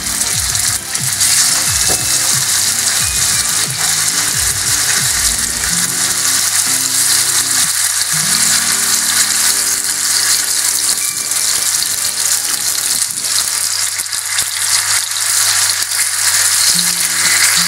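Chicken breast fillets sizzling steadily and loudly in hot olive oil in a frying pan as they are laid in alongside frying garlic slices.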